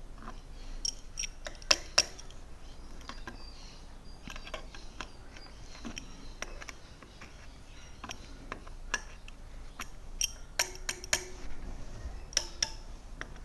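Steel wheel spokes of a Sur Ron electric dirt bike being struck with a metal tool, giving irregular short clinks and pings, the two loudest about two seconds in and a quick run of taps about ten seconds in. The pitch of each spoke's ring shows its tension: a higher tune means tighter, a dull one means loose, as the spokes are being tightened a little at a time.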